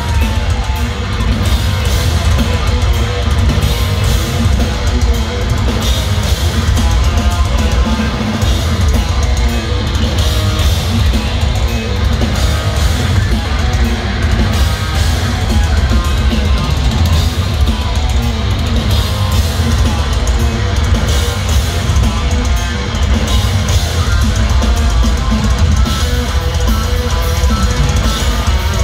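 Heavy metal band playing live and loud: distorted electric guitars, bass guitar and a pounding drum kit, heard from within the audience with a heavy, boomy low end.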